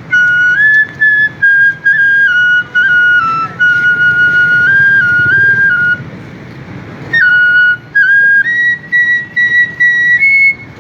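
Bansri, a side-blown bamboo flute, playing a naat melody: one line of held notes stepping up and down, a short pause about six seconds in, then climbing to higher notes.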